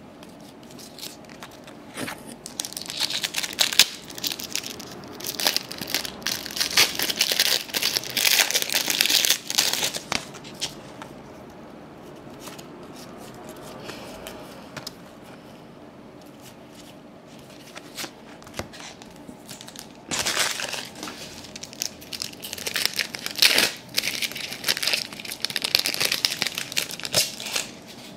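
Crinkling and tearing of a trading-card pack wrapper, with cards being handled, in two stretches: one from about two seconds in to about ten, and another from about twenty seconds in to near the end.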